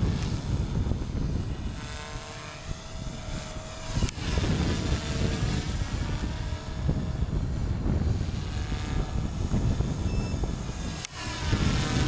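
Align T-Rex 250 electric RC helicopter flying overhead, its motor and rotor whine rising and falling in pitch as it manoeuvres, under heavy wind buffeting the microphone.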